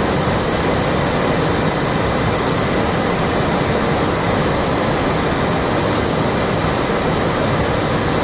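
Steady rushing noise on the flight deck of a Boeing 737-400 in flight: a constant roar of air with a low rumble underneath, holding level throughout.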